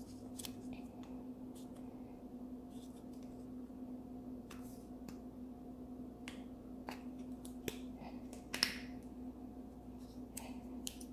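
Small plastic Play-Doh tubs handled and their snap-on lids pried off: scattered light plastic clicks and taps, with one louder, slightly longer scrape-like snap about eight and a half seconds in. A steady low hum runs underneath.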